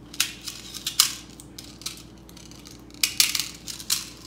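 Metal hand tools clicking and scraping against the parts of a Mobylette moped's recoil starter in a few short, sudden bursts, the loudest about a second in.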